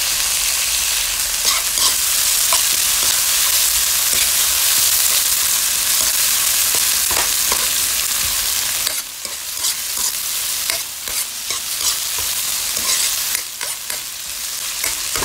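Sliced onion, scallion and peppers sizzling in a little hot oil in a frying pan, stirred with a metal spoon that scrapes and taps against the pan. The sizzle eases a little about nine seconds in.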